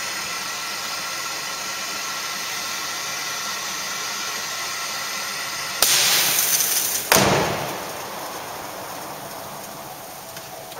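Handheld gas torch hissing steadily as it heats the detection tube of a water-based engine-bay fire-suppression system. About six seconds in, a sudden loud rush of hissing lasts about a second: the system discharging. It is followed at once by a heavy bang, the bonnet being slammed shut, which fades away.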